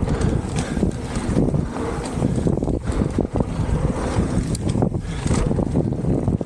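Mountain bike descending fast on a loose dirt trail: wind rushing over the microphone, tyres rumbling over dirt and gravel, and the bike rattling and knocking over bumps.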